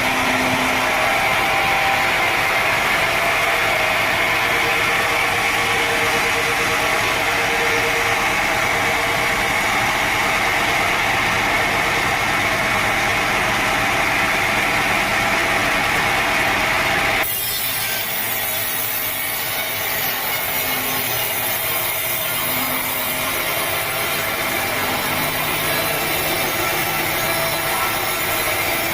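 Sawmill saw cutting through a teak log, a steady noisy sound of blade in wood. About 17 seconds in the sound changes abruptly and drops a little in level, as the saw goes on cutting.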